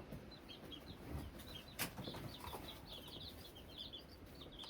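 Newly hatched chicks peeping: many short, quick high peeps, faint and continuous, with one sharp click about two seconds in.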